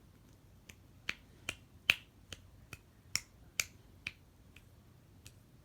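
A run of about a dozen sharp clicks, two or three a second, growing fainter near the end.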